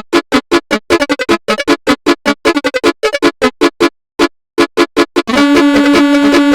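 Sampled basuri telolet bus air horn, a 12-note set, played as a melody in FL Studio. Quick short horn notes, a brief pause about four seconds in, then a long held multi-tone horn chord from about five seconds in.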